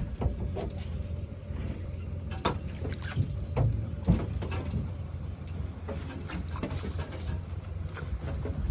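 Steady low rumble of a fishing boat drifting on the water, with water splashing against the hull and scattered irregular knocks and clicks.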